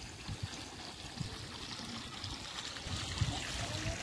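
Water running steadily from a garden hose onto the soil, a soft trickling hiss, with a few soft low thumps near the end.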